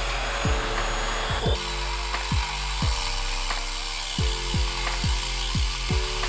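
Background music with a beat of deep kick drums, roughly two a second and unevenly spaced, over sustained bass notes and a steady hiss.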